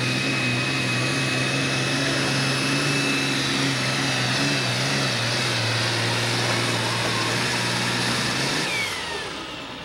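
Super stock pulling tractor's diesel engine running flat out under full load as it drags the sled, a deep steady drone with a high whine over it. Near the end the throttle comes off and the sound drops away, the whine falling in pitch as the pull ends.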